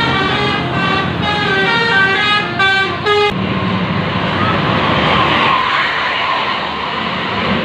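Bus telolet horn playing a quick tune of stepping notes for about three seconds, then cutting off abruptly. A steady rush of road noise follows.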